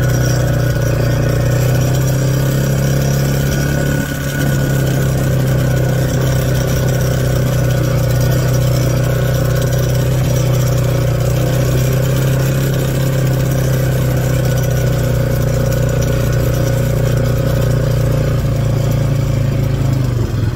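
Small farm vehicle's engine running steadily as it drives along, with a brief dip about four seconds in.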